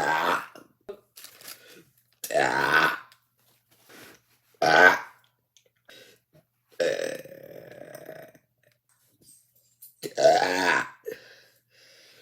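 A woman burping five times in a row, one burp about every two seconds. The fourth is longer and lower, drawn out for about a second and a half.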